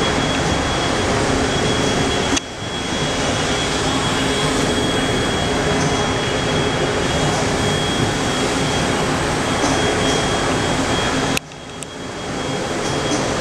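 Matsuura RA-IIF CNC vertical machining center running: a loud, steady rushing noise with a faint high whine. It dips suddenly twice, about two seconds in and near the end, and swells back each time.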